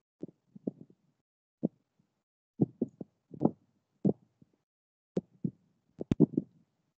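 Irregular short muffled knocks, in little clusters, with a few sharp clicks among them.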